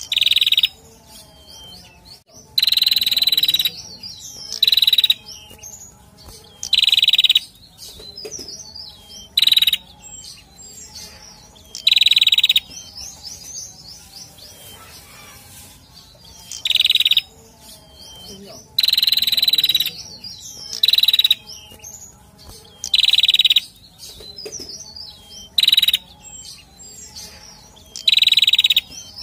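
Male prenjak calling: a series of loud, rapid trilled bursts, each under a second long, about every two seconds, with softer twittering notes in between.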